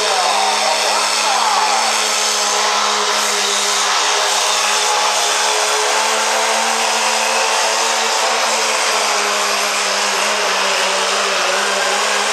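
Diesel 4x4 pickup truck engine held at full throttle while pulling a weight-transfer sled, a loud steady drone that holds one pitch throughout.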